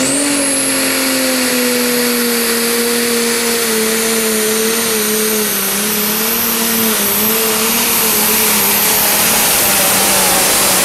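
Pro stock pulling tractor's turbocharged diesel engine at full throttle under load, pulling the sled. A very high turbocharger whine climbs steeply as the pull starts and then holds over the engine's steady drone, which sags slightly in pitch partway down the track.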